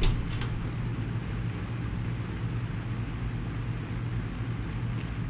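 Steady low mechanical hum of industrial machinery, with a sharp click at the very start and a few faint ticks near the end.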